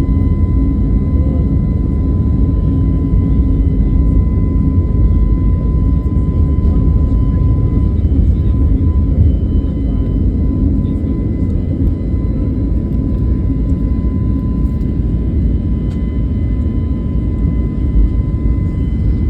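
Aeroplane taking off: a loud, steady low rumble of its engines at takeoff power, with a thin steady high tone above it.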